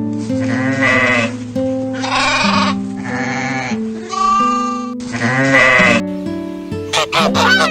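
Sheep or goats bleating: about five separate wavering calls in a row, over steady background music. Near the end, a different animal's quicker calls begin.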